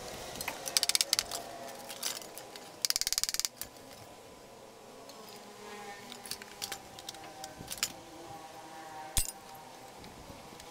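Clicks and rattles from the plastic body of an electric rice cooker being handled. There are two quick bursts of rapid clicking, about a second in and about three seconds in, followed by a few single sharp clicks.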